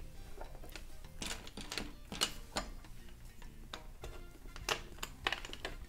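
Plastic Lego bricks clicking together as they are pressed and fitted by hand, a handful of sharp, irregular clicks.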